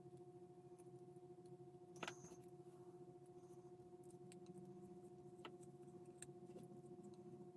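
Near silence: a steady low electrical hum with a few faint clicks from small plastic model-kit parts being handled, the loudest click about two seconds in.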